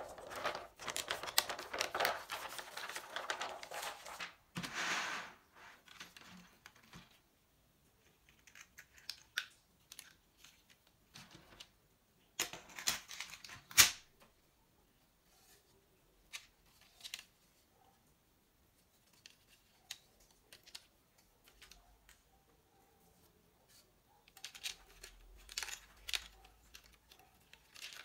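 Thin plastic keyboard membrane sheets crinkling and rustling as they are handled for about five seconds, followed by scattered clicks and knocks of the hard plastic keyboard frame and case parts being lifted and moved, with a louder burst of handling about halfway through.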